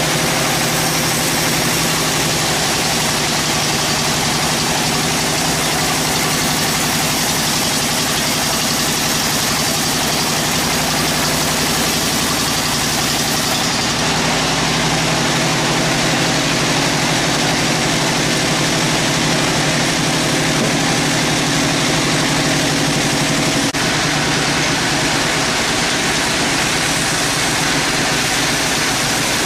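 Band sawmill's belt-driven engine running steadily at idle, a constant loud mechanical hum, while no cut is under way.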